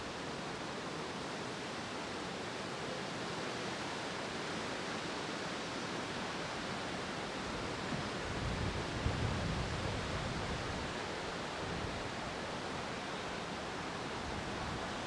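Steady outdoor background hiss of wind and rustling leaves, with a low rumble swelling briefly about halfway through.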